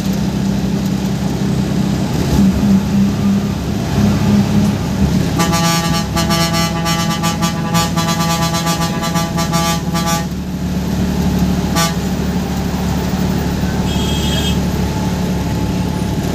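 Bus diesel engine running steadily, heard from the driver's cab, with a horn sounded over it: a few short toots in the first five seconds, then a long rapidly pulsing horn blast of about five seconds from about five seconds in, and a brief toot near twelve seconds.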